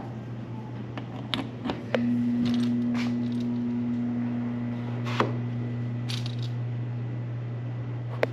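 A few sharp clicks, then about two seconds in a kitchen appliance on the troubled circuit switches on and runs with a steady electrical hum over the low hum already present. Another click comes near the middle.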